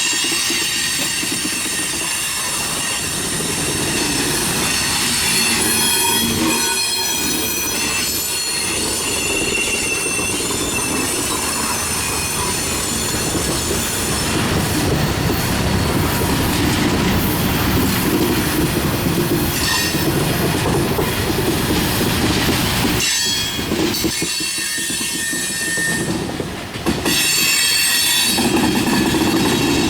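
Freight train cars rolling past at close range, a steady rumble and clatter of wheels on rail, with high-pitched wheel squeal that comes and goes.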